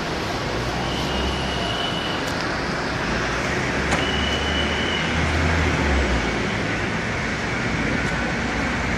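Steady, loud street noise of traffic and running engines, with a deep engine rumble swelling about a second in and again from about four to six seconds. Two brief thin high tones sound over it, about a second in and again about four seconds in.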